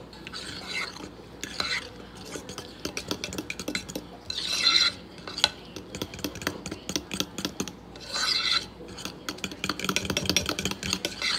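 Metal spoon stirring thick pancake batter in a mixing bowl, scraping and clicking against the bowl's sides as extra milk is worked in to loosen the batter. Two louder scraping stretches come about four and eight seconds in.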